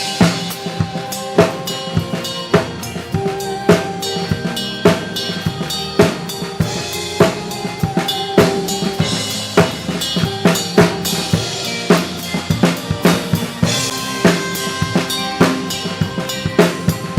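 Live band playing a social-dance tune: drums keep a steady beat of regular strikes under sustained melody notes.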